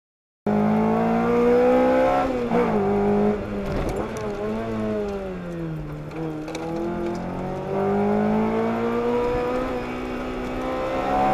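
Lotus sports car's engine heard from on board under hard acceleration, starting just after a brief silence. The pitch drops sharply at a gear change about two seconds in and falls away to a low around six seconds in as the car slows, then climbs steadily as it pulls hard again.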